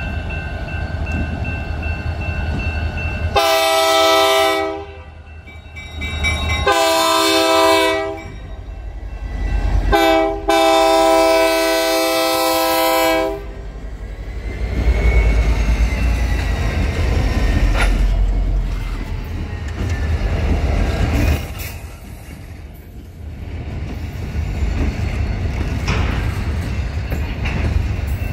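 Diesel locomotive multi-chime horn sounding the grade-crossing signal: two long blasts, a short one and a final long one. Then the diesel engines of two road-switcher locomotives rumble past close by, with a few sharp clicks from the wheels on the rails.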